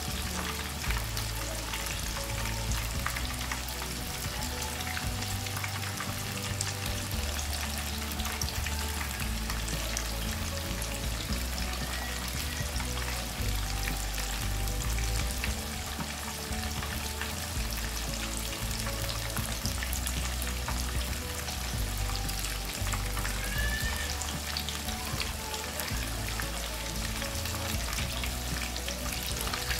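Marinated fish deep-frying in hot oil on a medium flame: a steady, dense sizzle and crackle of bubbling oil around the fish, over low background music.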